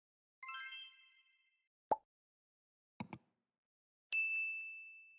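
A string of short edited-in sound effects over dead silence: a shimmering chime, a single pop, a quick double click, then a clear bell-like ding that rings on and slowly fades.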